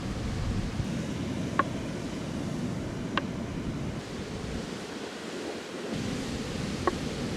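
Sea waves washing in with wind on the microphone, and three sharp clicks of glass marbles knocking against wooden Cuboro blocks, at about one and a half, three, and seven seconds in. The low rush of surf eases for about a second near the middle.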